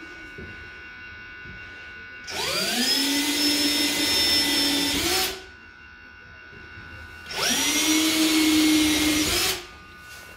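Cordless drill cutting countersinks in a wooden stretcher bar, recesses for the screw heads. It runs twice, about three seconds and then two seconds: each time the motor quickly winds up in pitch, holds steady while the bit cuts, then stops.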